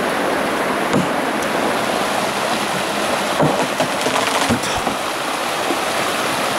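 Mountain stream rushing steadily over rocks and a small cascade, with a few short knocks about a second in and again past the middle.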